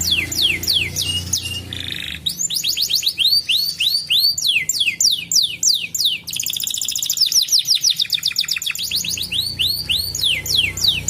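Domestic canary singing: fast trills of repeated downward-sliding whistled notes, switching between phrases of different speeds, with a very rapid rolling trill about six seconds in.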